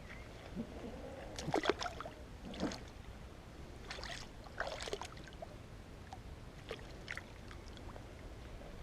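A few short, irregular splashes and sloshes of water, the loudest about one and a half seconds in, over a faint steady hiss.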